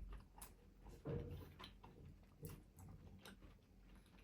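Faint chewing and mouth clicks from someone eating momo dumplings, a few scattered small clicks over near silence.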